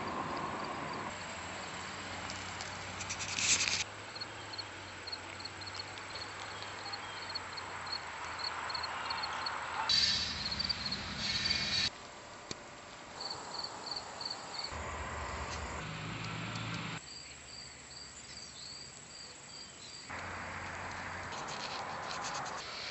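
Insects chirping: rows of short, high chirps, about three a second, over a steady background hiss. Louder bursts of noise come about three and a half seconds in and again around ten seconds.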